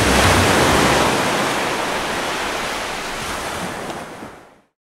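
Rushing noise of wind and breaking sea waves, fading out to silence after about four and a half seconds.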